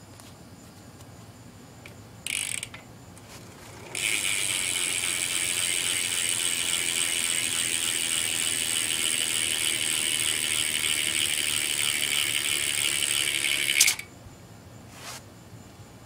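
BMX rear hub freewheeling, its pawls clicking so fast they make a ratcheting buzz as the back wheel spins free: a short spin about two seconds in, then a long, loud spin of about ten seconds that stops suddenly.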